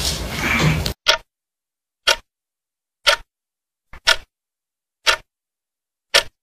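Wall clock ticking steadily, about once a second, six sharp ticks in all, after a first second of dense, clattering noise.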